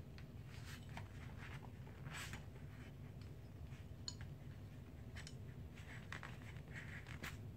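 Faint scattered metallic clicks from an AR-15 lower receiver's safety selector and trigger group being worked by hand, with one sharper click about four seconds in.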